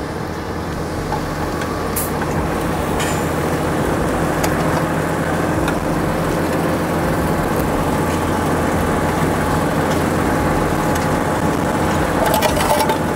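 Tractor engine running steadily under load while pulling a mounted subsoiler through the ground, with the machinery's constant noise and a few faint clicks.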